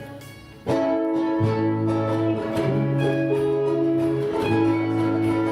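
Guitar and ukulele playing chords together, starting suddenly about a second in, with held notes and low notes that shift every second or so.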